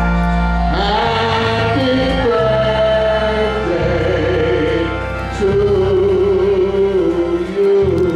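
Gospel music: singing in long held notes over a steady bass accompaniment.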